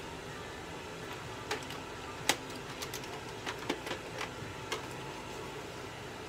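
A steady hum from equipment in a small room, with a run of about a dozen light, irregular clicks and taps from about one and a half seconds in to nearly five seconds. The sharpest click comes just after two seconds.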